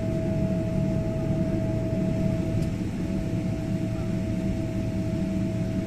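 Steady low rumble of an airliner cabin on the ground, the running aircraft heard from a window seat, with a constant thin whine over it.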